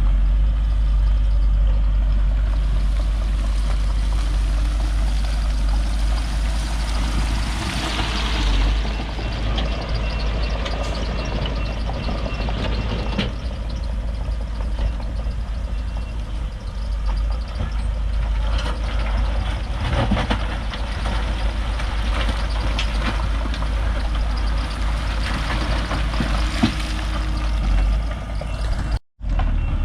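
A heavy diesel engine of earthmoving machinery running steadily, with scattered knocks and clanks of the machine at work. The sound cuts out briefly near the end.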